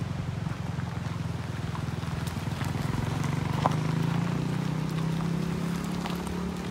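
An engine running steadily, with scattered small clicks over it.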